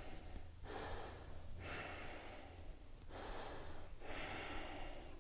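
A woman breathing audibly with effort while holding a one-legged balance pose: about four breaths, each a second or so long, over a faint steady low hum.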